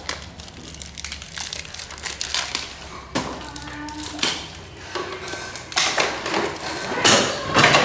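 Crinkling, rustling handling noise in short irregular bursts, as of something soft and crinkly being crumpled and moved about.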